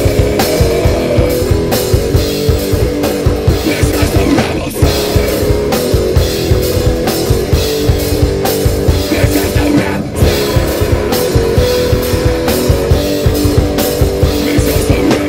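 Rock band playing live: a drum kit hit hard and fast under loud distorted guitar and bass chords, with two brief breaks in the playing about five and ten seconds in.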